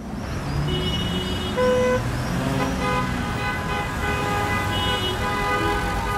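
City road traffic: a steady rush of passing vehicles with car horns honking several times and an engine note rising about a second in.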